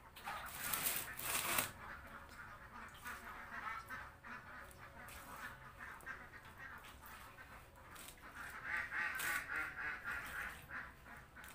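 Domestic ducks quacking in a group, loudest about a second in and again from about eight to ten seconds in, with the wet squish of duck feed mash being kneaded by hand in a plastic basin.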